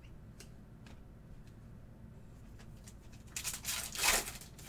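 Foil trading-card pack wrapper being torn open, a crinkling rip lasting about a second and peaking near the end. Before it come a few faint ticks of cards being handled.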